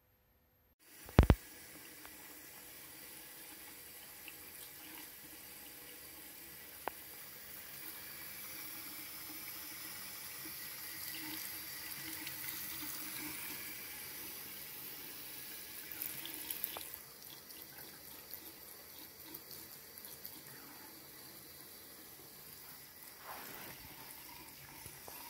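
A thin stream of water runs from a bathroom sink faucet into the basin and drain strainer, a steady splashing trickle. There is a sharp click about a second in.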